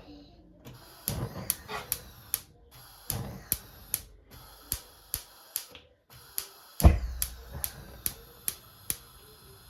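Light, evenly spaced clicks, about two to three a second, with a heavier thump about seven seconds in.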